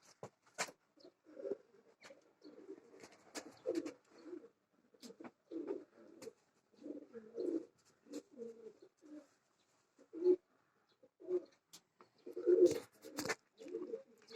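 Domestic pigeons cooing, a string of low, repeated coos, with scattered sharp claps or knocks that are loudest near the end.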